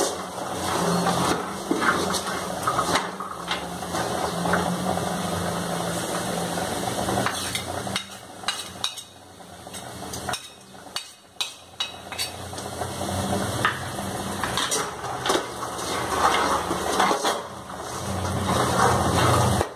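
Steel spoon stirring cooked black chickpeas around a metal kadai, scraping the pan, with frequent clinks of spoon on metal. Around the middle the stirring eases for a few seconds, leaving a few sharp taps, then picks up again.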